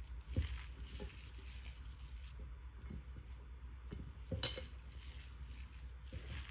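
Soft, patchy mixing and stirring sounds of a fish chutney being worked together in a bowl, with small scattered clicks and one sharp click about four and a half seconds in.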